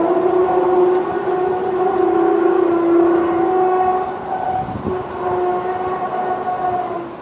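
A long, steady droning tone with a stack of overtones, wavering slightly and dropping in level about four seconds in: one of the unexplained 'strange sounds in the sky', the trumpet-like drone heard from the air.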